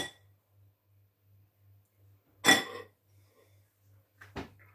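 A metal spoon clinking against a glass bowl of chicken filling: two sharp clinks about two and a half seconds apart, then light handling sounds near the end.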